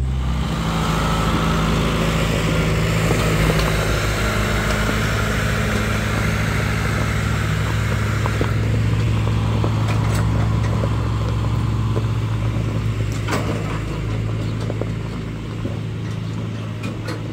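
Farm tractor engine running steadily as it pulls a train of hay wagons loaded with square bales, with a couple of sharp knocks from the wagons about ten and thirteen seconds in.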